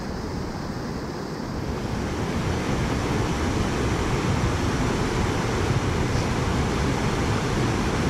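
Fast river water rushing and foaming over rocks in a rapid: a steady, even wash of noise that grows somewhat louder over the first couple of seconds.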